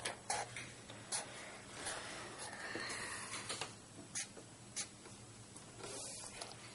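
Black felt-tip marker drawing on paper: a run of short scratchy strokes and tip taps, with a longer stroke about two to three seconds in and another near the end.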